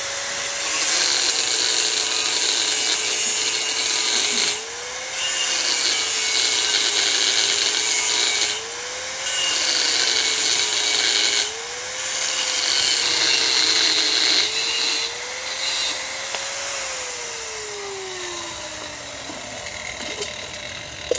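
Electric power tool cutting through a thin steel filter canister in several passes. The motor's pitch sags with a harsh scraping hiss while it bites into the metal, and picks up again in short breaks at about 4, 9, 12 and 15 seconds. Near the end it is switched off, and the pitch falls as it winds down.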